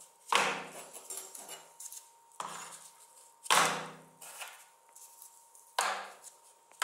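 Heavy iron scissor blades knocking against the basin as they are handled and laid in soapy water: four main clunks, each with a short fading ring, and a few lighter knocks between.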